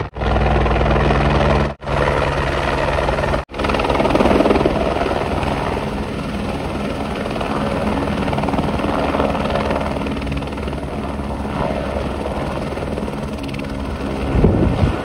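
Helicopter running, a loud steady drone, broken by three sudden dropouts in the first few seconds, with a brief swell near the end.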